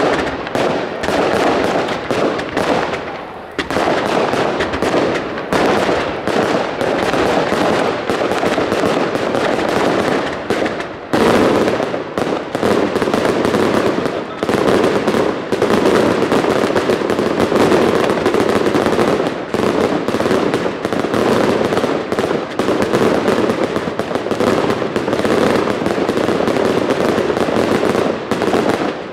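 Consumer fireworks in a dense barrage: a nearly unbroken run of launches, bangs and crackling. It thickens and grows louder from about eleven seconds in.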